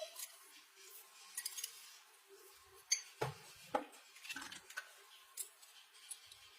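Small hard objects being handled: scattered clicks, taps and light clinks, the sharpest about three seconds in, over a faint steady hum.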